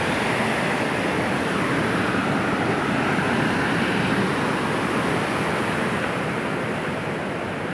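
Water pouring over a dam's concrete spillway: a steady rushing noise, easing slightly near the end.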